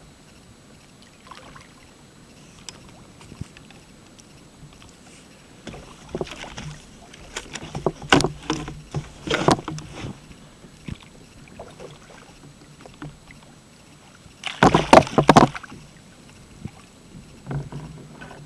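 A hooked fish thrashing and splashing at the surface beside a kayak as it is hauled in by the leader, with knocks on the hull. The bursts come in groups about six to ten seconds in, with the loudest burst about fifteen seconds in.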